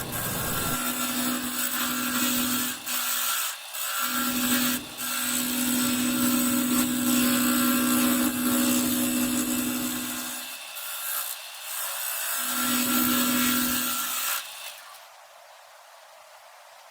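Power tool working a wooden blank: a steady motor hum with cutting noise that breaks off briefly a few times and stops about fourteen seconds in.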